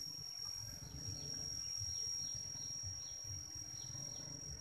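A steady high-pitched insect drone held without a break, with short falling chirps repeating about twice a second over it and an uneven low rumble underneath.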